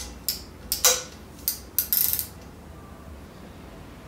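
Click-type torque wrench with a hex-key bit being fitted and turned on a bolt, tightened to 10 Nm: about five sharp metallic clicks and clinks in the first two seconds or so, the last a short rattling run, then quiet handling.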